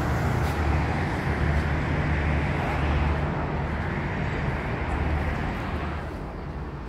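Steady hum of city road traffic below a high-rise balcony, fading near the end as the balcony door is left behind.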